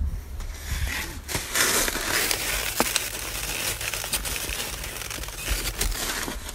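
Plastic zip-top bag and foam takeout containers crinkling and creaking as they are handled close to the microphone, a dense run of small crackles that builds about a second in.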